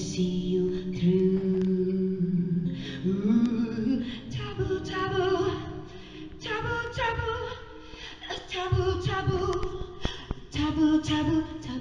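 A woman singing live with little accompaniment, long held notes that bend and slide in pitch. A steady low tone sits under the voice for the first couple of seconds.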